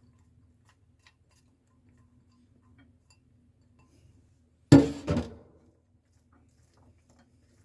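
Two quick clattering knocks of kitchenware about five seconds in, the first the louder, over a faint steady hum.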